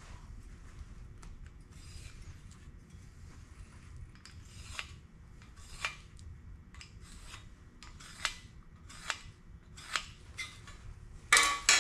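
Marker scratching cut lines onto a steel tube, with a string of sharp light clicks and taps on the metal. Near the end comes a louder metallic clatter.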